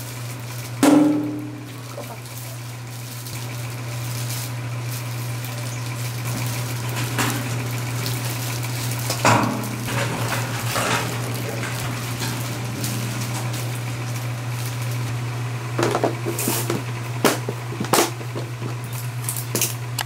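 Gloved hands mixing green onion kimchi in a stainless steel bowl and packing it into a plastic container: wet handling with scattered knocks and clatters against the bowl and box, the loudest about a second in. A steady low hum runs underneath.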